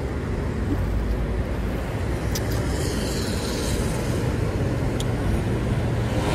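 Steady low outdoor rumble, like traffic or wind, with two faint brief clicks, about two and a half and five seconds in.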